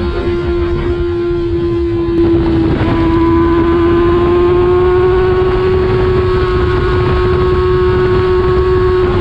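Kawasaki ZX-6R inline-four engine held at high revs, a steady high engine note that dips slightly about two and a half seconds in and then holds, with wind buffeting the microphone.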